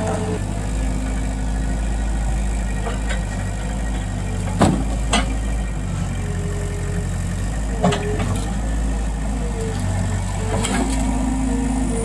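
New Holland skid-steer loader's engine running steadily as it lifts a long cedar log in its grapple. Three sharp knocks come a little past the middle.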